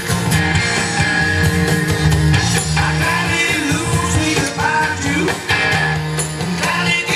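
A rock song with singing and guitar, playing from a record through speakers driven by a restored Sansui AU-717 integrated amplifier on its phono input.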